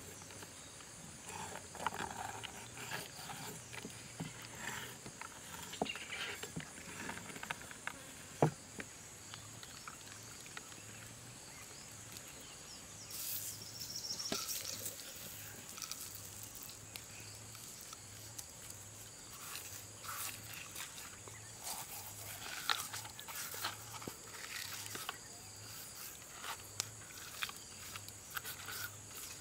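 Fish being prepared by hand on a wooden board: a knife scoring the fish skin, with one sharp knock of the knife on the board about eight seconds in, then a brief hiss of salt poured over the fish midway, and light rustling and pattering as seasoning is sprinkled and rubbed in. A faint steady high insect drone runs underneath.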